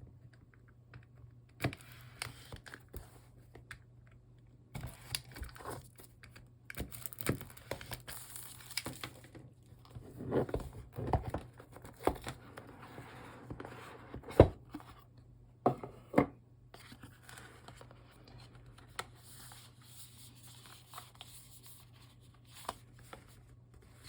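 A smartphone retail box being unboxed by hand: packaging torn open and crinkling, with scattered sharp taps and clicks as the box is handled, the loudest about two-thirds of the way through.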